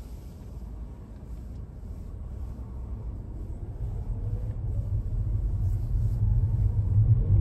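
Car driving on the road: a low rumble that grows steadily louder, with a faint rising whine in the second half.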